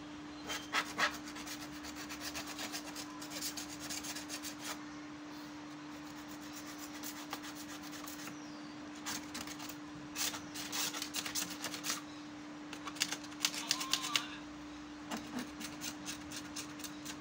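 Scraping and rubbing at an air cooler's plastic grille and dirty honeycomb cooling pad, in four bursts of rapid rasping strokes, over a steady low hum.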